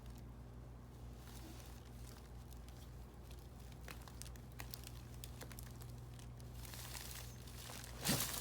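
Quiet rustling and crinkling of a patient shifting on a chiropractic table, over a steady low electrical hum. About eight seconds in comes a sudden loud burst: the chiropractor's side-posture thrust setting the lowest lumbar vertebra.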